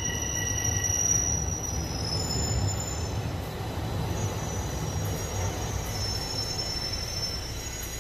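Bombardier Toronto Rocket subway train rolling along the platform as it slows: a steady low rumble of steel wheels on rail with high-pitched wheel squeal that fades out about a second in, leaving fainter high squeals. The whole sound gradually gets quieter as the train comes nearly to a stop.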